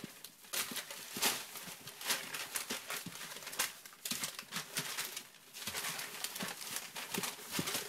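English Bulldog puppies scuffling on newspaper: the paper crinkling and rustling under their paws and bodies, with small puppy vocalizations among the rustling.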